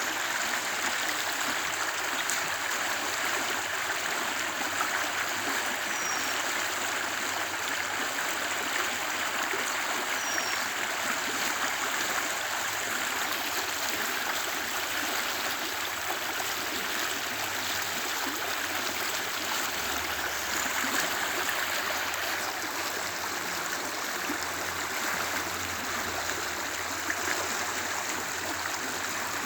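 A lively creek flowing: a steady, continuous rush of running water. A couple of faint, short, high chirps come through it, around a third of the way in.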